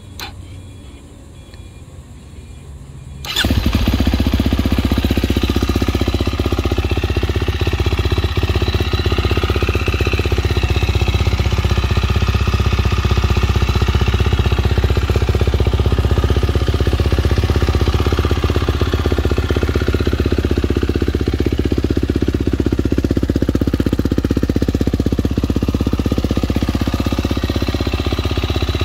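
2023 KTM 350 SX-F motocross bike's single-cylinder four-stroke engine starting about three seconds in, then running steadily.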